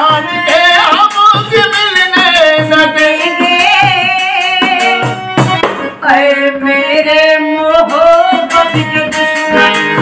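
Ghazal sung to a harmonium, the voice holding long wavering notes over the reed chords, with a hand-struck frame drum keeping the beat. The singing and playing break off briefly about six seconds in.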